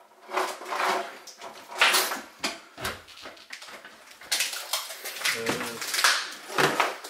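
A door being worked open by hand: a string of irregular knocks, clicks and rattles from its latch and frame.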